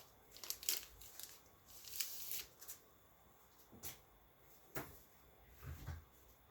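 Paper rustling from the pages of a black-and-white comic magazine being turned and handled: a quick run of rustles in the first few seconds, then single softer page movements.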